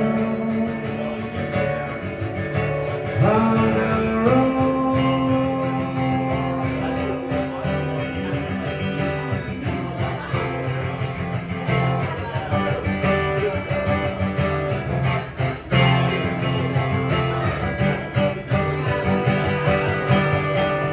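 Live song performance: a guitar played with a singing voice holding long notes, several of which slide up into pitch.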